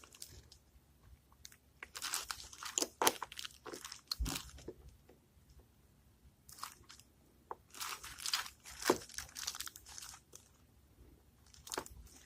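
Thin metal piston rings being spread over a small two-stroke piston and pushed down into their grooves: scattered light clicks and scrapes, with a single duller knock about four seconds in.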